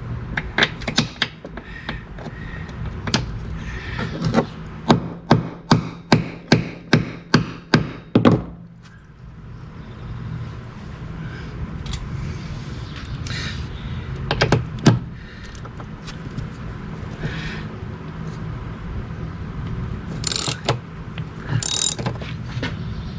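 Socket ratchet clicking in an even run, about two clicks a second, for the first eight seconds or so, then a few more clicks later on, as T30 Torx bolts are backed out of a golf cart's pedal assembly plate.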